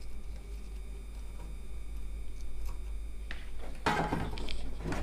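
A printed circuit board and bench tools being handled, with rustling and clattering in the last couple of seconds and a louder knock near the end, over a steady low hum.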